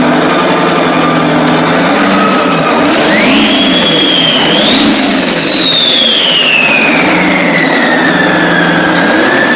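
Detroit Diesel 16V149 two-stroke V16 diesel running and being revved: a steady high whine climbs sharply about three seconds in, jumps higher again shortly after, then slowly falls back as the revs drop. Two brief bursts of hiss come with the rises.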